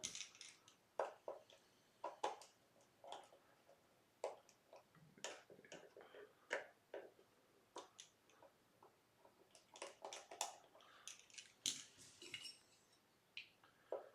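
Faint, irregular clicks and light scrapes of small hand tools working on an electric guitar while its pickup heights are adjusted.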